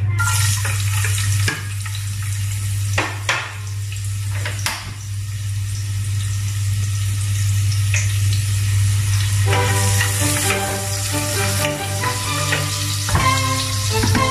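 Chopped onion, ginger and garlic sizzling as they sauté in a pot, stirred with a wooden spoon, with a couple of sharp scraping knocks about three and five seconds in. Background music comes in a little before ten seconds, over a steady low hum.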